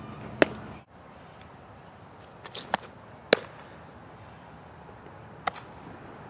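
A fastpitch softball smacking into a leather glove several times: short, sharp pops, the loudest about three seconds in, over steady outdoor background.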